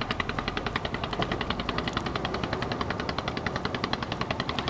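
A small engine chugging at a rapid, perfectly even beat of about ten pulses a second.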